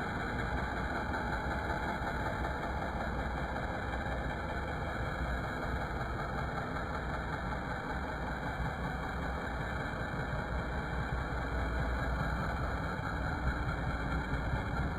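A machine running steadily with an even, unbroken drone and no distinct strikes or changes.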